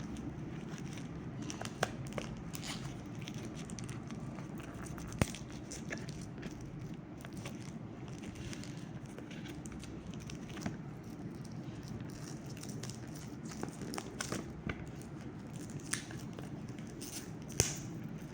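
Plastic wrapper being picked at and torn off a boxed card deck: scattered sharp crinkles and crackles over a steady low hum.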